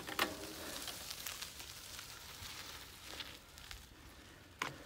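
Bicycle tyres rolling over a gravel track, a faint crackle of small stones, with a single sharp knock near the end.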